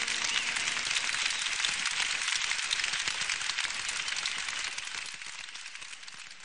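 Applause from a crowd, many claps blending into a dense patter that dies away over the last two seconds or so.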